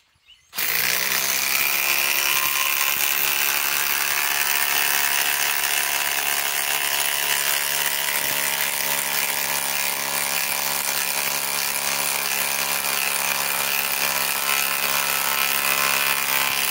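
DeWalt DCF840 cordless impact driver hammering without pause as it drives a 10-inch lag screw into very hard wood, at a steady pitch. It starts about half a second in and is labouring: the driver cannot sink the big lag all the way.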